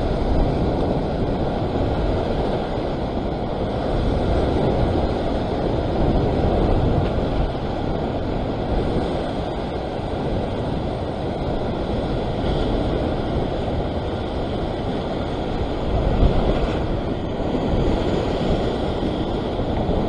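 Ocean surf washing and breaking around sea rocks, mixed with wind buffeting the microphone: a steady, deep rushing noise that swells briefly about three-quarters of the way through.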